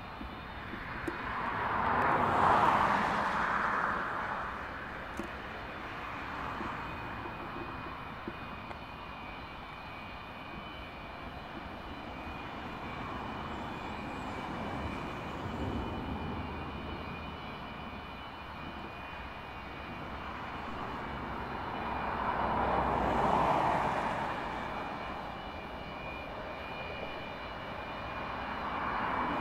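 Antonov An-124's four D-18T turbofan engines running at taxi power: a steady jet rush with a thin high whine on top. It swells louder twice, about two seconds in and again about twenty-three seconds in.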